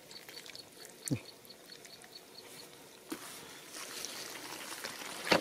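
Bare hands digging and scooping wet mud, with soft squelches and a few short knocks about a second, three seconds and five seconds in. Faint, fast, even high chirping, about six a second, runs through the first two seconds.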